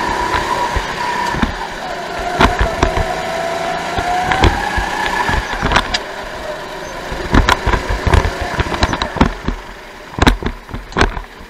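Go-kart engine heard onboard. Its note dips and then climbs for a couple of seconds as the kart accelerates, then falls away and quietens toward the end as the kart slows. Many sharp knocks and thuds run throughout.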